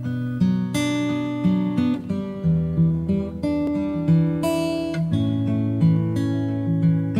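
Intro music played on acoustic guitar: a melody of plucked notes, each starting sharply and ringing on.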